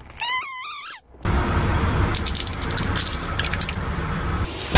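A rubber squeaky toy squealing in wavering, rising and falling pitch as a car tyre presses down on it. About a second in it gives way to the rumble of a train wheel rolling over objects on the rail, with crackling snaps.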